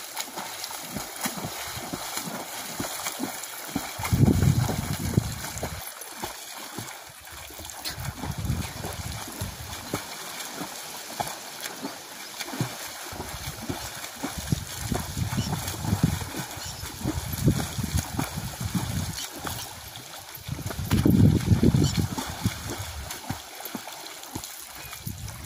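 Water splashing from a swimmer's arm and leg strokes in a farm pond. Two louder low rumbles come about four seconds in and near the end.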